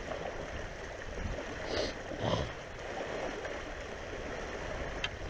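Small lake waves lapping against a rocky, gravelly shore, a steady wash of water with a few faint brief sounds about two seconds in.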